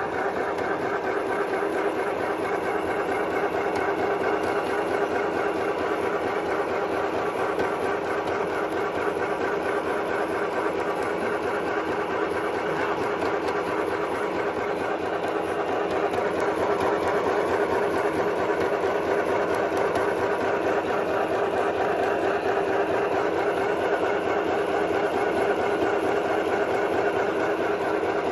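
Stoigeld SM-725 compact sewing machine running steadily, its needle mechanism rattling rapidly and evenly, a little louder from about halfway through.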